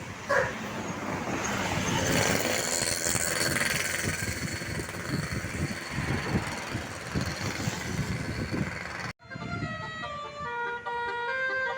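A bus's telolet horn playing its multi-tone musical toots over vehicle noise. About nine seconds in it cuts off sharply and background music takes over.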